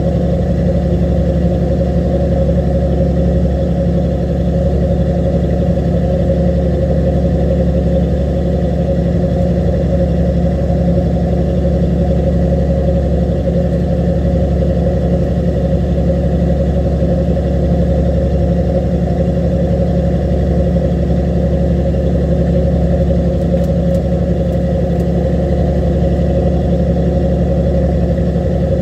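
Fishing boat's engine running steadily: a loud, even drone that holds the same pitch and level throughout.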